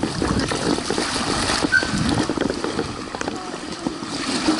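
Shallow seawater sloshing and lapping around an action camera held at the water's surface, with wind buffeting the microphone.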